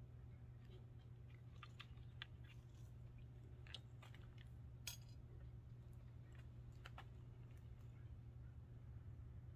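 Faint, scattered clicks and taps of small parts being handled while the tool tray's nuts and bolts are fitted on a bike repair stand, one sharper click about five seconds in, over a steady low hum.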